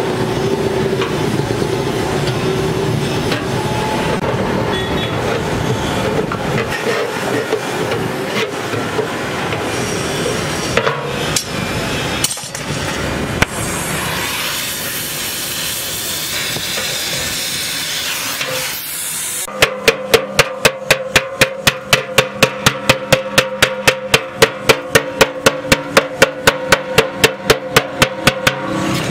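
Gas welding torch hissing steadily on the steel of a motorcycle fuel tank. About two-thirds of the way through, a hammer starts striking the tank's welded steel seam rapidly, about four ringing blows a second, stopping just before the end.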